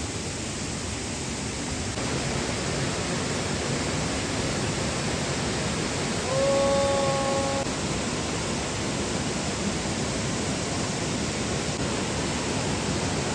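Steady rushing noise of falling water, with a short, steady pitched tone about six seconds in that lasts just over a second.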